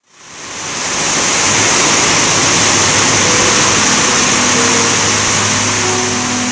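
Loud, steady rushing noise that fades in from silence at the very start and then holds level, with no rhythm or pitch of its own.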